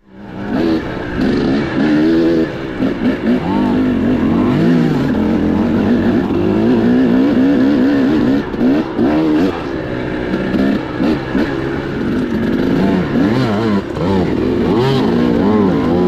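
Dirt bike engine revving up and down over and over while being ridden, its pitch climbing and dropping every second or so.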